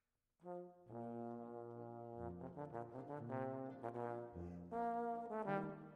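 Instrumental background music that comes in about half a second in, with held notes that change every second or so.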